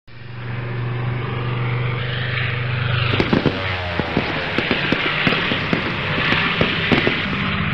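A small engine running steadily at an even pitch, with a run of sharp clicks and knocks through the middle few seconds.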